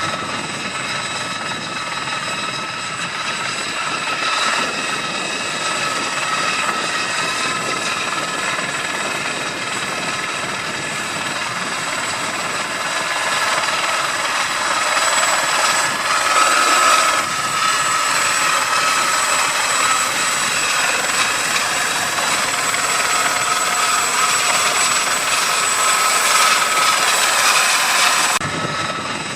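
Helicopter flying, a continuous rotor and engine noise with a steady high-pitched whine over it. It grows a little louder around the middle and changes abruptly in tone about a second before the end.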